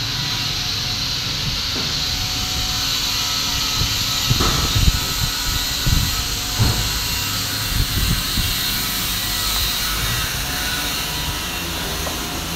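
Steady hiss of workshop background noise, with a few dull low thumps around the middle.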